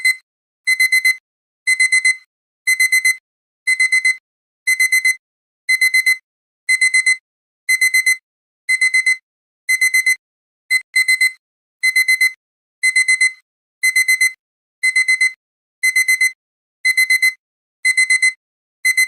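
Electronic alarm-clock beeping: groups of four quick high-pitched beeps, one group about every second, repeating steadily. It is the timer's alarm signalling that the countdown has run out.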